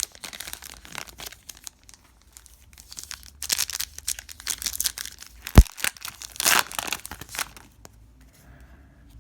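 Crinkling and tearing of a trading-card pack wrapper as it is ripped open, in two rustling spells, with one sharp thump a little after halfway that is the loudest sound.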